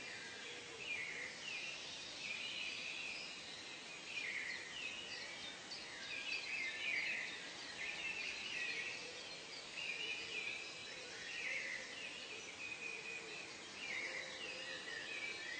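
Bird chorus: many birds calling at once, overlapping short chirps and quick sweeping calls repeating throughout, over a steady background hiss.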